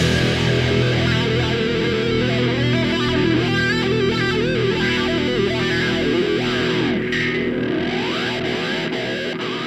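Outro music: an electric guitar through effects, holding ringing notes with wavering, gliding pitches, beginning to fade near the end.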